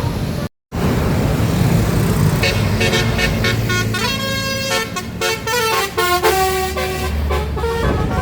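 Tour bus's telolet basuri multi-note horn playing a quick tune of stepping notes over the bus engine's low rumble, starting about two and a half seconds in. The sound drops out for a moment about half a second in.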